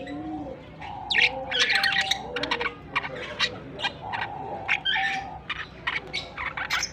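Pet budgerigars chattering: a busy, continuous run of short high chirps and squawks with some warbled lower notes.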